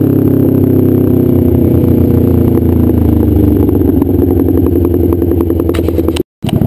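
Straight-piped Kawasaki Ninja 250R parallel-twin exhaust, its pitch falling steadily as the bike slows, then settling into a lumpy idle with distinct firing pulses. The sound cuts out briefly near the end.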